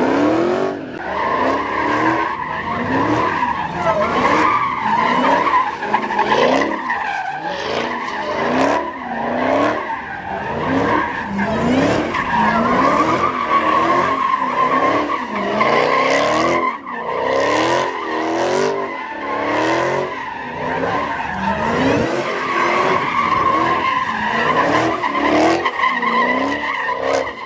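A car being drifted: its engine is revved over and over, each rev a rising sweep roughly once a second, under a steady high-pitched tyre squeal.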